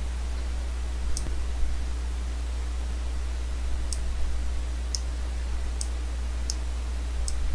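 Computer mouse clicking about seven times, single clicks spaced roughly a second or less apart, over a steady low hum.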